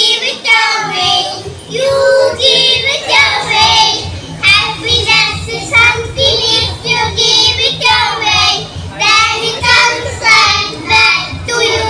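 A group of young boys singing together through microphones and a PA, phrase after phrase, with a low rhythmic beat underneath that comes in about a second in.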